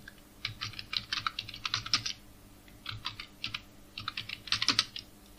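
Computer keyboard typing: quick runs of key clicks, three bursts of words with short pauses between them.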